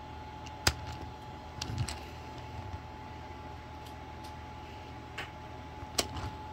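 Handling noise of a Munipals R143 toy subway car turned over in the hands: two sharp clicks, one about a second in and one near the end, with a few lighter taps and rubs between.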